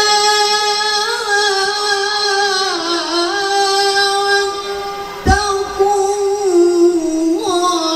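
A solo voice singing an Arabic-language religious song in long, ornamented held notes that slide between pitches. There is a single short thump about five seconds in.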